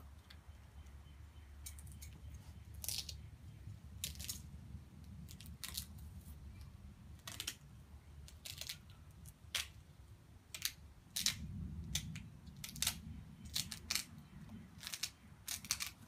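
Duct tape being peeled and crinkled off by hand: irregular short crackles and tearing sounds about once a second, over a low steady rumble.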